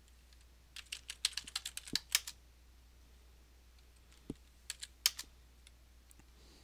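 Computer keyboard keystrokes: a quick run of about a dozen taps about a second in, then a few separate taps between four and five seconds in.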